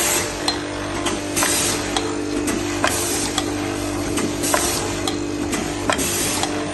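Automatic jeans back-pocket folding machine cycling: short hissing bursts about every second and a half, sharp mechanical clicks between them, and a steady machine hum underneath.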